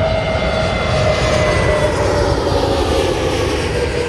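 Jet airliner, a British Airways Airbus A320, passing low overhead on landing approach: steady engine and air noise with a whistle that slowly falls in pitch as it goes by.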